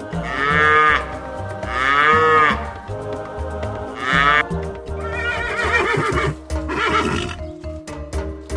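Farm animal calls over background music: three separate rising-and-falling calls, then a longer wavering call about five seconds in.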